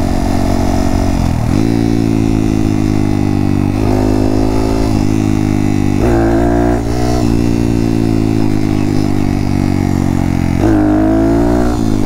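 Honda Monkey's single-cylinder engine, enlarged with a Kitaco 181cc big-bore kit, running under load while riding. The revs climb and ease off several times as the rider accelerates and shifts.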